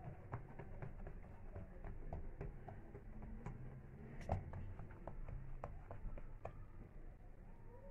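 Hands pressing and patting yeast dough flat on a floured countertop: soft, irregular taps a few times a second, with one louder knock about four seconds in.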